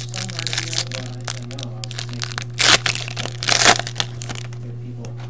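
Foil wrapper of a trading-card pack crinkling in the hands and being torn open, with two loud rips about two and a half and three and a half seconds in, over a steady low hum.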